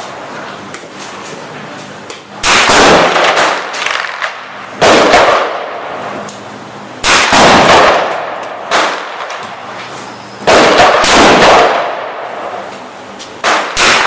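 Hi-Point 9 mm carbine fired at a slow, steady pace: five sharp shots two to three seconds apart, each trailing off in a long echo, with a fainter shot about nine seconds in.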